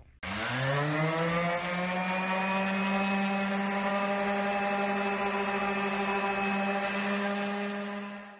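Porter-Cable random orbital sander starting up on a wooden board: its motor whine rises quickly in pitch for about a second, then holds a steady hum over the hiss of sandpaper on the wood.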